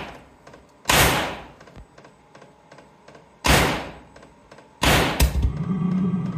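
Chinese diesel parking heater popping through its exhaust as ether fed into it ignites in the combustion chamber: four sharp bangs, the last two close together about five seconds in. Then a steady low hum sets in as the heater runs.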